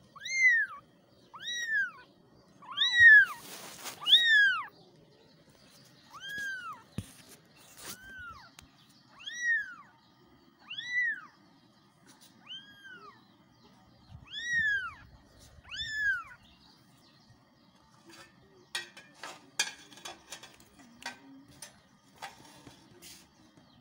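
Young kittens meowing repeatedly for their mother: about a dozen short, high-pitched mews, each rising and falling in pitch, coming roughly once a second and sometimes overlapping. The calls stop about two-thirds of the way through, giving way to soft rustling and clicks.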